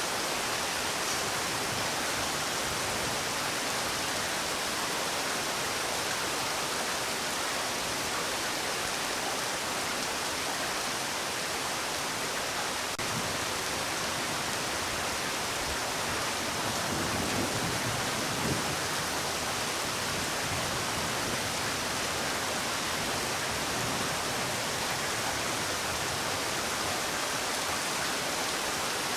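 Steady rain falling, an even hiss with no let-up, briefly a little heavier about two-thirds of the way through.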